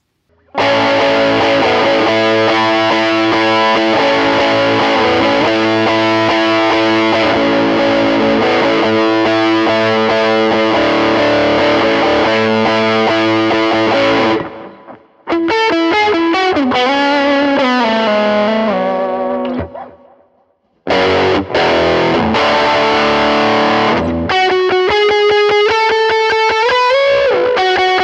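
PRS Custom 24 electric guitar with Bare Knuckle Mule humbuckers, played through an HX Stomp Dumble-style overdrive preset (a Zendrive-style drive into an Air Apparent, a US Double Vibe amp model, tape delay and hall reverb). Overdriven chords ring for about fourteen seconds, then after a brief stop come single-note lead lines with string bends, a short pause, more chords, and another bending lead line near the end.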